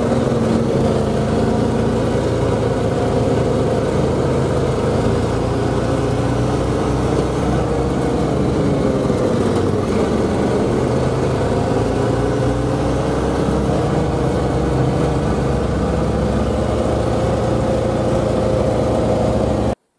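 Vehicle engine and road noise heard from inside the cab while driving, running steadily with the engine note drifting gently up and down. It cuts off suddenly just before the end.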